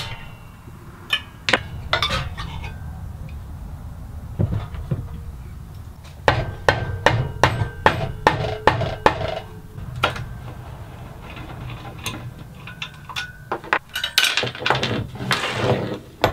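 Mallet striking the metal frame of a homemade belt grinder: a run of about ten quick knocks, roughly three a second, from about six to nine and a half seconds in. Scattered clinks and knocks come before and after.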